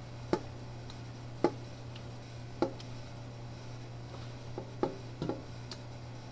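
Spiral dough mixer kneading sourdough dough, with a steady low hum and about six sharp knocks at irregular intervals.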